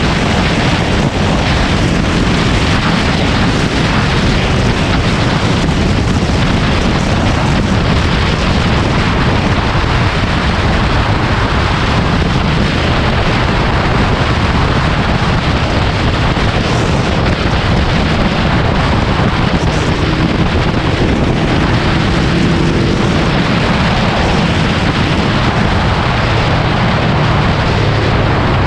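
Yamaha VMAX 1700's V4 engine running steadily at highway cruising speed, mixed with loud wind rush over the onboard microphone.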